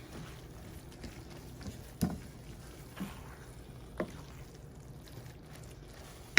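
Spoon stirring lentils in a cooking pot, with sharp knocks against the pot about once a second.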